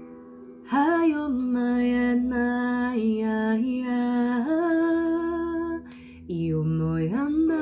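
A woman toning: long, wordless sung notes, each held steady, stepping between a few pitches. The voice comes in just under a second in, breaks off briefly about six seconds in, then returns on a lower note and slides up near the end. A faint steady drone sits underneath.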